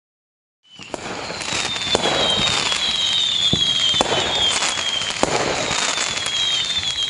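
Firework sound effect fading in quickly after a moment of silence: a dense crackle of fireworks with repeated falling whistles and several sharp bangs, signalling the countdown has reached zero.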